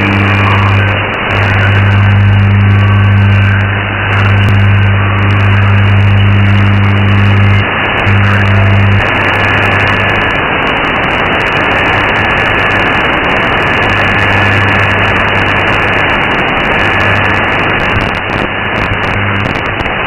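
Shortwave AM reception on 9425 kHz through an RTL-SDR: loud hiss and static with a strong low hum that drops out about eight seconds in, fades, and returns for a while. A faint steady whistle runs through the second half. No programme audio is heard yet, only the station's carrier before its interval signal.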